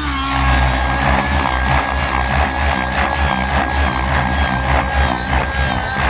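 Two-stroke glow (nitro) engine of an RC helicopter, an O.S. 55 HZ with a tuned pipe, running at high revs with a steady pitch as the helicopter flies.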